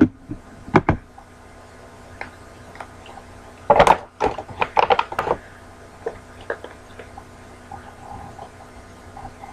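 Small plastic hand sanitizer bottles being handled: sharp clicks and knocks, with a burst of clattering and rustling about four to five seconds in.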